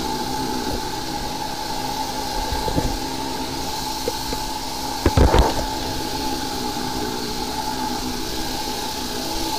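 High-pressure sewer jetter running steadily, a constant engine-and-pump drone with a hiss, while its hose works in the drain line. A short cluster of loud knocks about five seconds in.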